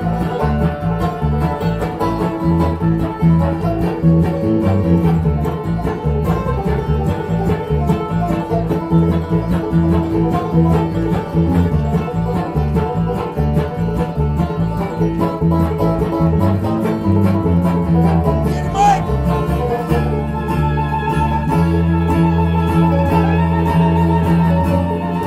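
Live bluegrass band playing an instrumental passage: fast banjo and guitar picking over a steady bass line, with fiddle.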